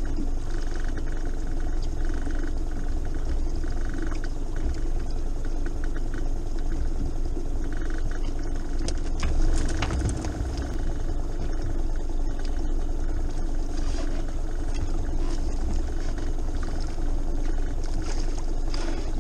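Boat engine running steadily, a constant low rumble and hum, with a few scattered clicks and knocks.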